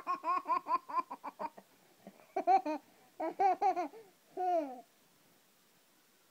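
Toddler in a fit of laughter: a quick run of high ha-ha laughs for about a second and a half, then three shorter bursts of laughing.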